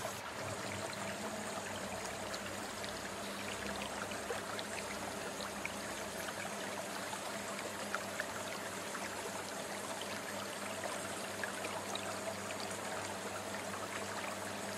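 Aquarium hang-on-back filters running: a steady trickle of water splashing back into the tank, with small scattered drips and a low steady hum underneath.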